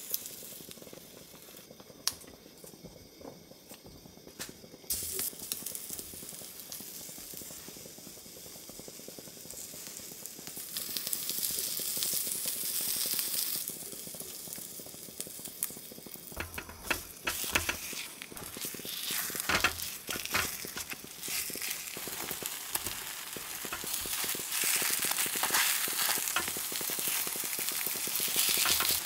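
Takoyaki batter sizzling in a hot takoyaki pan, the sizzle getting louder about a third of the way in and again near the end. Scattered short clicks and scrapes of the ladle and wooden skewers against the pan.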